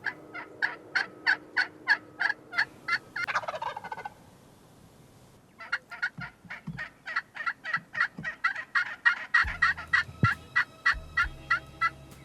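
Turkey yelping: two long runs of short, rapid, evenly spaced yelps, with a pause of about a second and a half between them.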